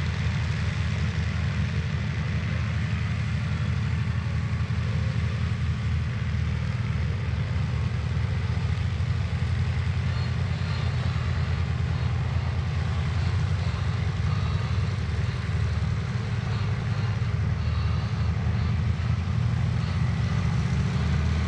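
Radial engine of an A6M2 Zero running at a steady low idle while the fighter taxis, an even low rumble that does not rise or fall.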